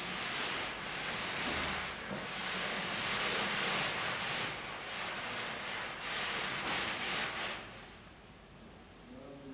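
A woven cloth strip set with metal plates being pushed, gathered and slid by hand across a smooth table: a rustling, scraping rub that comes in several swells and stops near the end.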